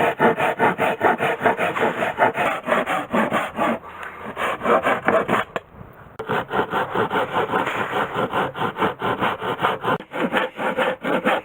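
Hand saw cutting wood in quick, even back-and-forth strokes, about five a second, stopping briefly about six seconds in before going on.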